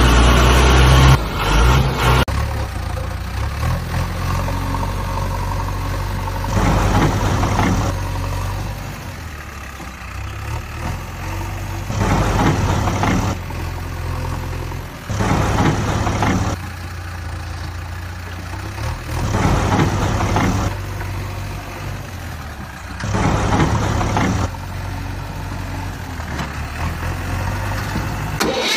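Heavy vehicle engine idling steadily with a low hum, with a louder surge about every three to four seconds.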